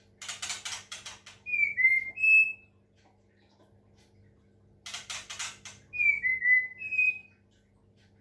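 White-rumped shama singing two phrases, each a quick harsh rattling chatter followed by a few clear whistled notes that slide down and then step up. A faint steady hum runs underneath.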